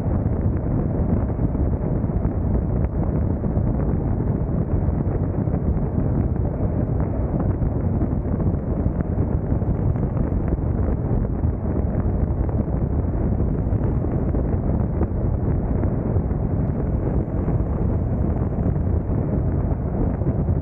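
Steady rush of wind and road noise from a car driving at freeway speed, with wind buffeting the microphone; an even, low-heavy noise with no distinct events.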